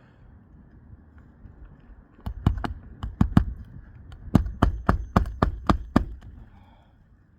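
A hammer striking repeatedly: about fifteen sharp blows in two quick runs, with a short pause between them.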